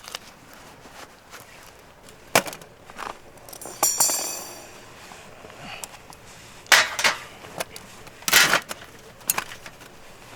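Scattered sharp knocks and clatters, about four loud ones spread out with smaller ticks between; one about four seconds in is a metallic clink that rings briefly.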